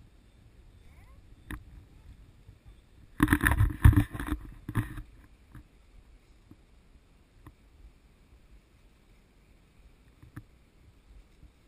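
A burst of rubbing and knocking right at the microphone of a camera being handled, lasting just under two seconds a few seconds in. Scattered faint clicks come before and after it.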